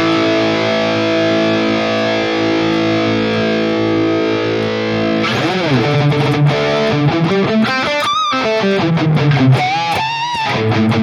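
High-gain distorted electric guitar played through a digital amp modeler with a Mesa Orange V30 cabinet impulse response. A chord rings out sustained for about five seconds, then a run of fast lead notes follows, with string bends and vibrato.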